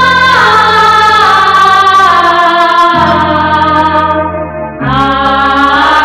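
Instrumental interlude of a 1980s Bollywood film song: a wordless choir holds sustained chords over a steady bass line. It dips briefly between two and five seconds in, then moves to a new chord.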